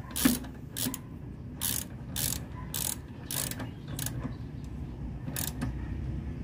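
Socket ratchet wrench clicking in short bursts, about two a second, as the coolant reservoir's mounting bolt is tightened. The clicking stops about five and a half seconds in.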